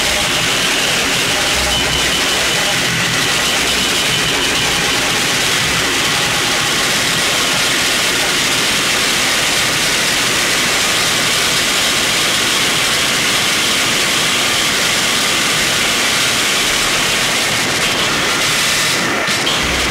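Harsh noise music: a loud, unbroken wall of distorted noise filling the whole range, with a throbbing low pulse near the start and again at the end.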